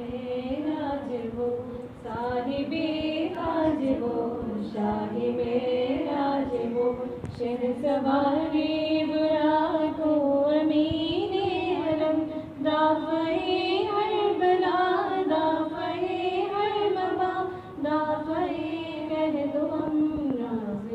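A woman singing a devotional song unaccompanied, in long held, gliding melodic phrases with short breaks for breath between them.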